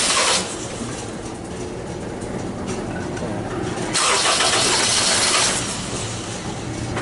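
Honda CR-V K20 four-cylinder engine being started repeatedly: loud starter cranking stops about half a second in and comes again about four seconds in for a second and a half, with quieter engine sound in between. This is a crank-start, cuts-off condition with a P0341 cam/crank out-of-phase code, which the mechanic suspects is a stretched timing chain.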